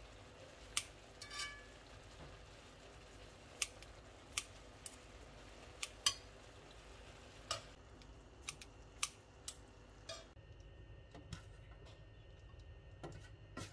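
Kitchen scissors snipping cooked beef and metal tongs clicking against a cast-iron pan and a plate: a dozen or so sharp, separate clicks. A faint sizzle from the pan runs under the first part and drops away about ten seconds in.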